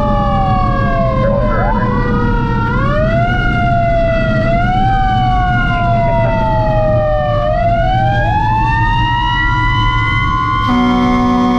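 Fire truck sirens wailing: two overlapping siren tones slide up and down in pitch, crossing each other, over a steady engine rumble. Near the end a steady horn sounding several tones at once begins.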